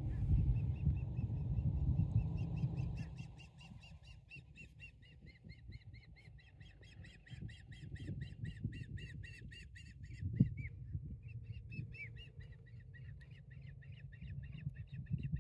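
An osprey calling: a long run of rapid high chirps, about five a second, with a short break about ten seconds in. A low rumbling noise fills the first three seconds, and there is a single knock about ten seconds in.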